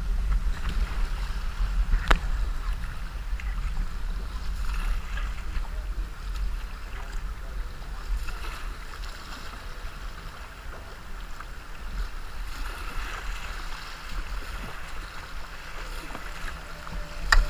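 River water rushing and splashing around a kayak as it is paddled, with a low wind rumble on the action camera's microphone. A sharp knock about two seconds in and another near the end.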